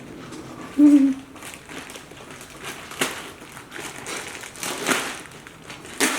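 A toddler's short vocal sound at a steady, slightly falling pitch about a second in, then scattered clicks and scrapes of a spoon and dish as he eats.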